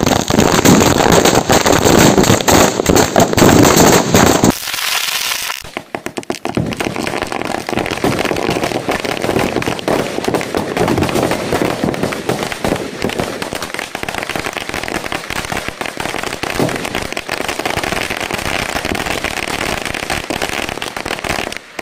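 A mixed pile of Diwali firecrackers (bidi bombs, sutli bombs, mini bullet bombs, pop-up and bijli crackers) going off in a rapid, dense string of bangs and crackles. It is loudest for the first four seconds or so, then carries on as a steady run of smaller pops and crackling.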